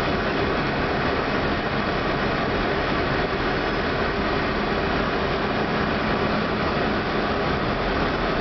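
Steady flight-deck noise of an Airbus A319 on final approach: an even hiss of airflow and air conditioning with a low hum underneath.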